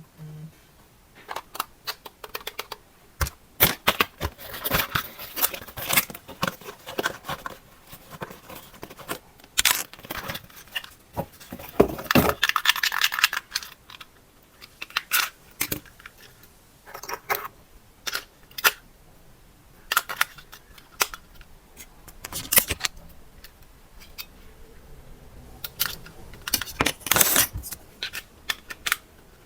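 Handling noise from unboxing RC toys: irregular clicks, rattles and rustles of plastic parts and packaging being handled, with a longer rustling stretch about twelve seconds in and again near the end.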